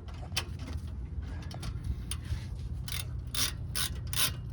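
Hand ratchet wrench with a socket clicking as a nut is tightened on the exhaust repair: a few scattered clicks at first, then regular ratcheting strokes, about three a second, from about three seconds in.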